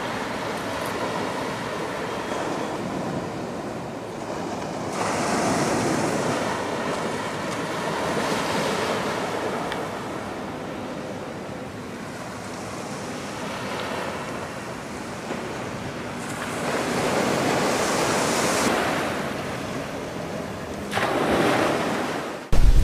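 Gentle surf: small waves washing up the sand and drawing back, swelling several times.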